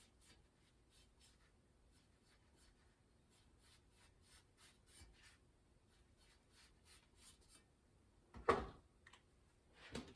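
Faint, quick scratching strokes of a pencil-like tool drawing out a template pattern, about four a second, then a single sharp knock about eight and a half seconds in.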